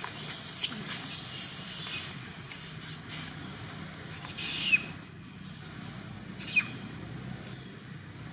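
Long-tailed macaque screaming in distress while under attack: very high-pitched shrieks over the first two seconds, then shorter squeals that fall in pitch, three more times.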